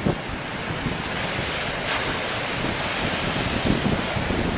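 Surf breaking and rushing on the shore, with strong wind buffeting the camcorder microphone.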